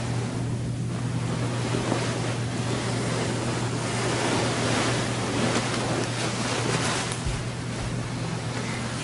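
Duvet and bedding rustling close to a microphone as people move under the covers, a rough shifting hiss that swells in the middle and eases near the end, over a steady low hum.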